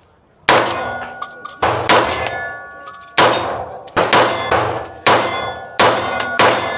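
Sig Sauer MPX 9 mm carbine fired in single shots, about nine at an uneven pace, each followed by the clang of a steel target ringing.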